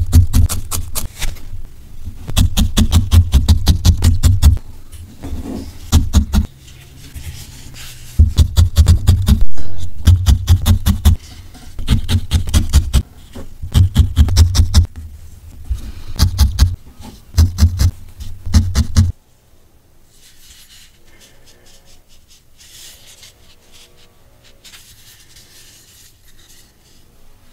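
Felting needle stabbed quickly and repeatedly into wool against a foam pad, in runs of short pokes with brief pauses between them. The stabbing stops about two-thirds of the way in, leaving only faint handling sounds.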